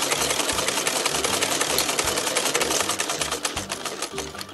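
Sewing machine stitching at speed, a rapid, even clatter of needle strokes that stops near the end.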